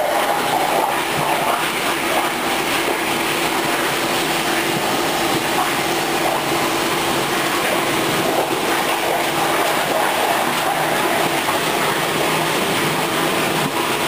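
A crusher (plastic and rubber granulator) running loud and steady while rubber handlebar grips are fed into its hopper, its blades chopping them into granules.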